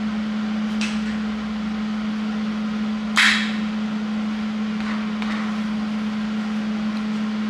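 Locking C-clamps being set on square steel tubing: a few light metal clicks and one sharp metal clack about three seconds in, over a steady low electrical hum.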